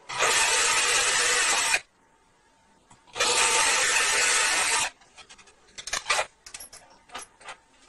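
Electric hand drill boring shallow holes into the wooden back panel of a speaker cabinet through a metal wall bracket: two grinding bursts of under two seconds each, followed by a few light clicks and knocks.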